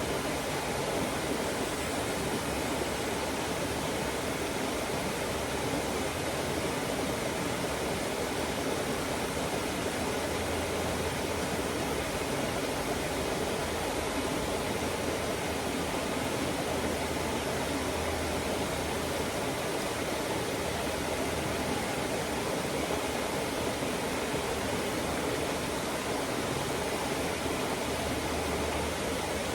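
Water rushing steadily over rocks in a stream, an even, unbroken sound.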